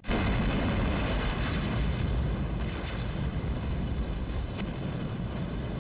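Intro sound effect of a fiery blast: a sudden loud rush of deep rumbling noise that holds and slowly fades.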